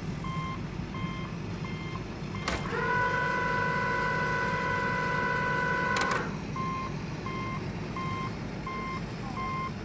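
Electronic sound module of a toy crane truck playing a reversing-alarm beep about twice a second over a low engine hum. About two and a half seconds in, a click starts a steady electronic tone that holds for about three and a half seconds and ends with a click, and then the beeping resumes.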